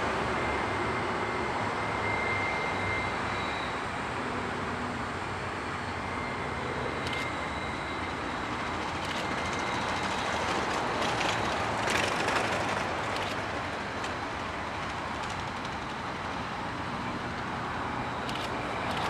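Two Aurizon 2300 class diesel locomotives working a loaded coal train heard at a distance: a steady rumble of engines and wagons mixed with road traffic. A thin high tone comes and goes, and a few sharp clicks stand out, the loudest about twelve seconds in.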